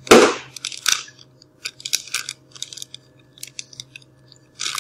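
Plastic bag holding chicken and pickle juice crinkling and rustling as it is handled, loudest right at the start, then in scattered short crinkles.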